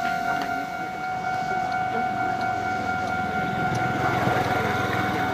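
Japanese level-crossing warning alarm sounding its steady electronic tone while a Keisei train rumbles past, the rumble growing louder in the second half.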